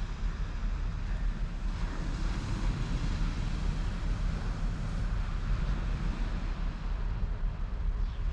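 Wind buffeting the microphone in a steady low rumble, with the hiss of waves washing on the beach behind it.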